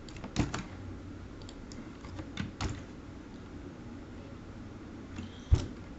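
Computer keyboard keystrokes in short irregular runs of clicks with pauses between, as commands are typed. The loudest is a single heavier keystroke near the end.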